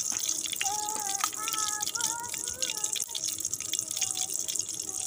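Hot oil sizzling and crackling in a metal wok as shallots, tomato and chili pieces fry, a steady spitting hiss dotted with small pops.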